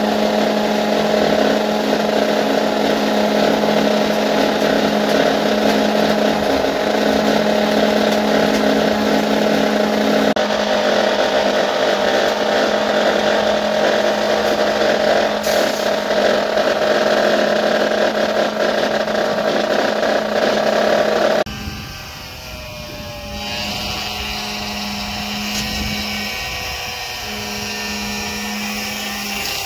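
Concrete poker vibrator running steadily with a constant hum while compacting freshly poured concrete in a column form. About two-thirds of the way through, the sound drops suddenly to a quieter mix of machinery noise with a fainter, broken hum.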